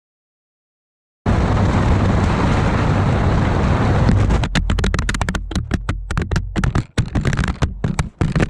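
Loud wind and road rush on a GoPro microphone mounted outside a truck at highway speed. It starts abruptly about a second in, and from about halfway through it sputters and cuts in and out rapidly and irregularly.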